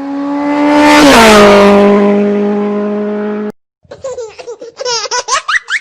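A motor vehicle passing close by: a steady engine note with a rush of noise that swells, then drops in pitch about a second in as it goes past, cut off abruptly a little past halfway. After a short gap, high squealing laughter with quick rising and falling pitch.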